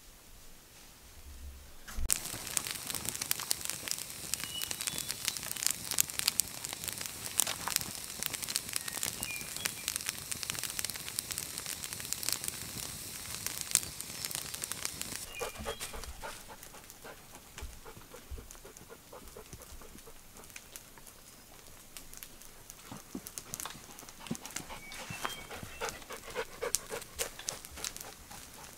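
Wood campfire crackling and popping, starting about two seconds in, with birds chirping. Near the end a dog panting.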